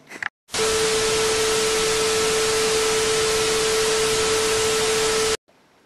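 Television static sound effect: a loud, even hiss with a steady mid-pitched tone running through it. It starts about half a second in and cuts off suddenly near the end.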